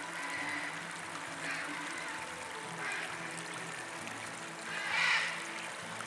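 Shallow stream trickling steadily while a female Eurasian blackbird splashes as it bathes, with the loudest splash about five seconds in.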